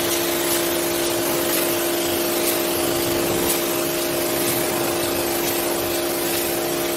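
Gravity-feed air spray gun hissing steadily as it sprays wood stain, over the steady hum of a small electric air compressor running.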